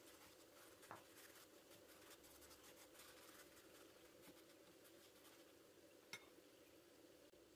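Near silence: faint crackling from spinach gözleme cooking in a hot frying pan over a low steady hum, with two soft clicks, about a second in and about six seconds in.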